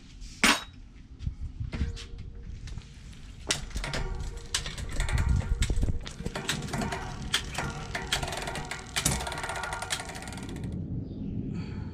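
Bicycle being handled and worked on: a sharp click, then several seconds of dense, irregular metallic clicking and rattling that stops suddenly near the end.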